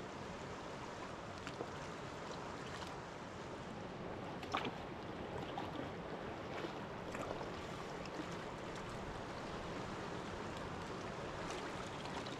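Steady rushing of river water, with a few brief sharp sounds over it, the loudest about four and a half seconds in.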